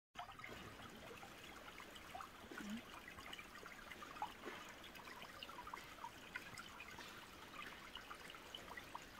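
Faint trickle of stream water running beneath ice, with scattered small plinks.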